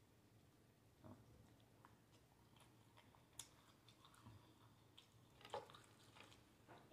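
Faint chewing of a grilled cheese sandwich: soft, scattered mouth clicks and smacks, with a slightly louder crackle about five and a half seconds in as the toasted sandwich is pulled apart.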